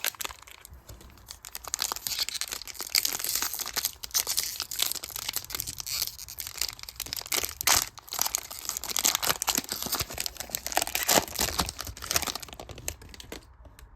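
NBA Hoops trading-card pack wrapper being torn open and crinkled by hand: a dense, continuous run of crackling and rustling that dies away just before the end.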